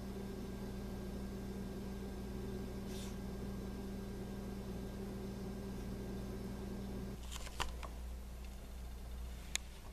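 Steady low room hum with a few constant tones, its character changing abruptly about seven seconds in. Two sharp clicks come about two seconds apart near the end.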